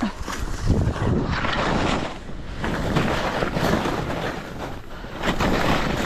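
Skis hissing and swishing through soft powder snow on a descent, the sound swelling and fading every second or two, with wind buffeting the camera microphone.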